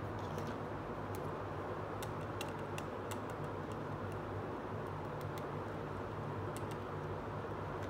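Light, irregular plastic clicks and taps of a small plastic toy hand mirror being handled, bunched about two to three and a half seconds in and again later, over a steady hiss with a low hum.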